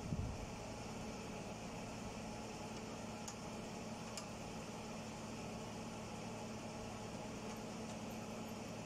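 Steady hum and hiss of an electric pedestal fan running, with a low thump right at the start and two light clicks about three and four seconds in.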